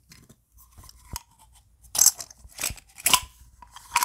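Silver rounds and a plastic coin tube clicking and clinking as the coins are handled and loaded into the tube: a string of sharp clicks, some with a short metallic ring, the loudest about two and three seconds in.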